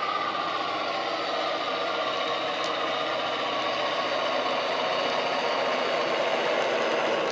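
Digital (DCC) sound decoder in a model Irish Rail A class diesel locomotive, playing a recorded diesel engine running steadily through the model's small speaker as the locomotive moves with its train, with some rattle.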